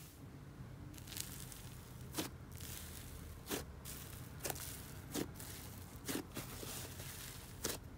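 Thick icy slime being stretched and pressed by hand, giving a soft sizzling crackle with a sharper sticky pop about once a second.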